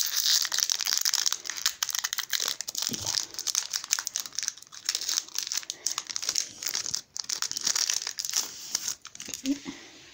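Foil wrapper of a Yu-Gi-Oh! booster pack crinkling and tearing as it is opened by hand. It makes a dense, crackly rustle that dies away about nine seconds in, once the cards are out.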